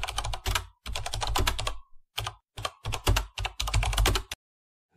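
Computer keyboard typing sound effect: rapid key clicks in short runs with brief pauses, stopping a little before the end.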